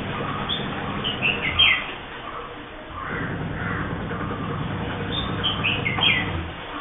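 Bulbul calling: two bursts of short, quick, falling chirpy notes, about a second in and again near the end, over steady low background noise.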